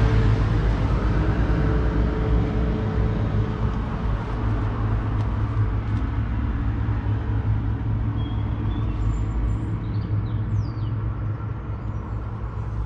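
Claas Arion 650's 6.8-litre six-cylinder diesel engine idling steadily with a low rumble, slowly getting a little quieter.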